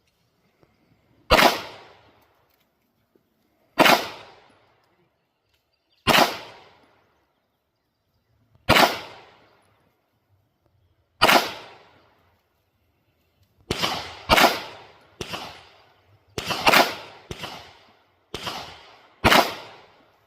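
Canik Combat 9mm pistol fired about thirteen times, each shot trailing off in an echo. The first five shots come slowly, about two and a half seconds apart, then about eight follow in quicker succession.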